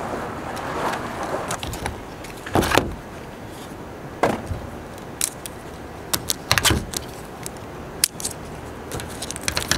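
Handling of new bracketless windshield wiper blades and their plastic strip covers: a few scattered sharp clicks, taps and rattles, the loudest knock a couple of seconds in.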